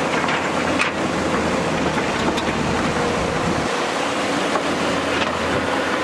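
JCB tracked excavator's diesel engine running steadily under load with a held hydraulic tone, while the bucket scrapes rock and earth. A few sharp knocks of rock come about a second in, near the middle and near the end.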